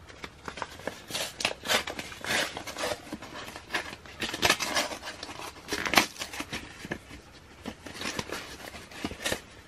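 Packaging being handled off to one side: irregular crinkling and rustling with sharp little clicks, the loudest a little after halfway.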